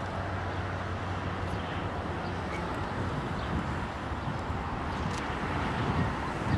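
Wind rushing over the microphone, with the steady drone of an RC seaplane's small motor underneath as it taxis on the water.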